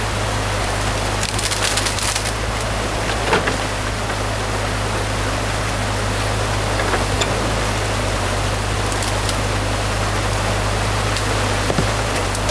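Water rushing through a breached beaver dam over the steady running of a compact tracked excavator's diesel engine. Branches and dam wood crack and snap several times, most sharply a couple of seconds in.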